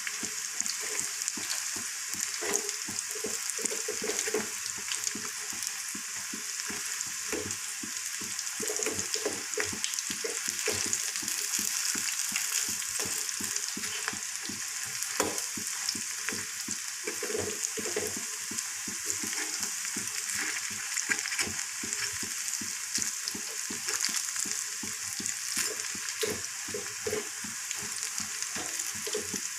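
Battered cauliflower pakoras deep-frying in hot oil with a steady sizzle. Many quick clicks and scrapes come from a metal spatula turning them against the pan.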